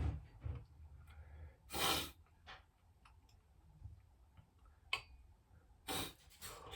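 A person breathing close to the microphone: two short audible breaths, with a couple of small sharp clicks.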